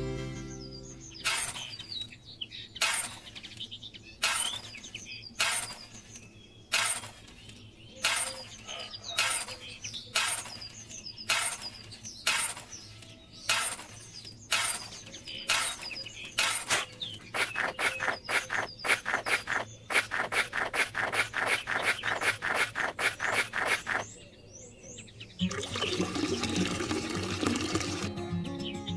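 Small toy shovel scraping and scooping dry cement powder, a stroke about every second, then quicker strokes. Near the end, water is poured from a small tin can into the powder in a steady splashing stream.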